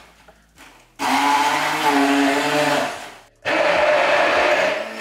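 Electric stick blender puréeing spinach with garlic, cheese and oil in a tall beaker. It runs in two bursts of about two seconds each, with a short break between, starting about a second in.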